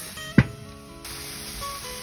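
Background music with long held notes. A single sharp knock comes about half a second in, and grill sizzle comes back in about a second in.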